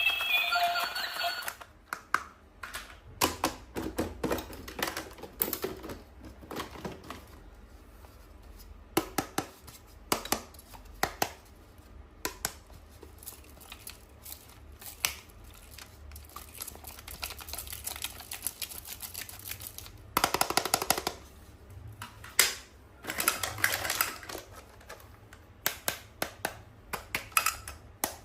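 Hands handling toy packaging: scattered clicks, taps and short rustles of plastic and cardboard, with a longer crinkling rustle about two-thirds of the way in. Background music fades out about a second and a half in.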